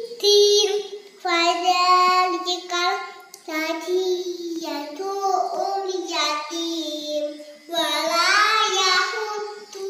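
A four-year-old girl's voice reciting Arabic prayer verses in a sing-song chant, in long drawn-out phrases with short pauses between them.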